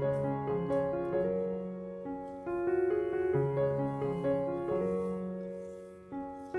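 Background instrumental music: a slow, gentle piano melody of held notes.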